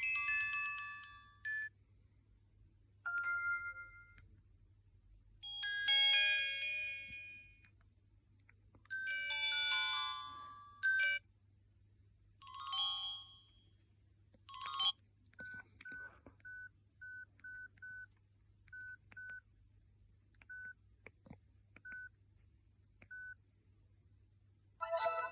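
Huawei G6153W mobile phone playing its preloaded ringtones through its small speaker, each a short melodic snippet of a second or two that cuts off before the next starts. This is followed by a run of about a dozen short single beeps at one pitch at irregular intervals, then one more brief ringtone snippet near the end.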